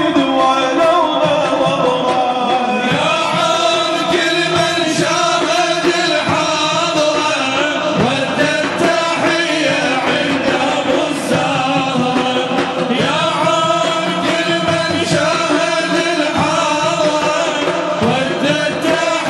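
A group of men singing an Arabic devotional praise song (inshad) together through microphones, with a large frame drum beating along.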